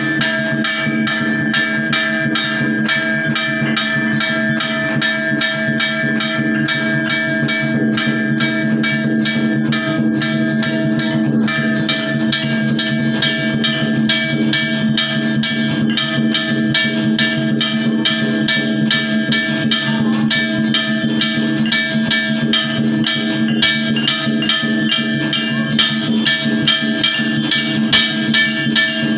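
Music: a quick, even percussion beat over sustained ringing tones.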